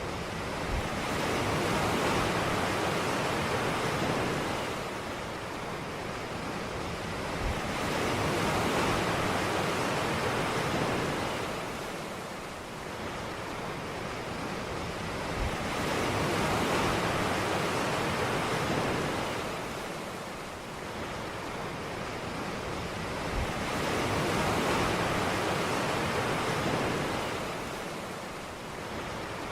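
Ocean waves breaking on a beach: the surf swells and fades about every eight seconds, four times, and each surge opens with a soft low thump.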